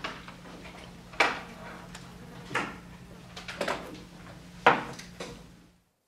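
Scattered knocks and clatters from students shifting at classroom desks and chairs, about five sharp ones spread a second or so apart, over a steady low hum. The sound cuts off near the end.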